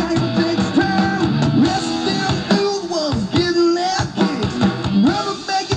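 Rock band playing live: amplified guitars over a drum kit, with a lead singer.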